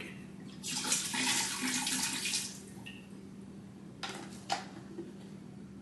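Dark rum poured from a bottle for about two seconds, then a short knock a few seconds later.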